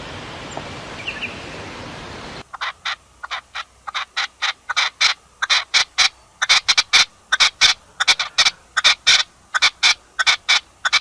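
Outdoor ambience with a few faint chirps, then, about two seconds in, a bird calling in a fast run of short, repeated calls, about three to four a second.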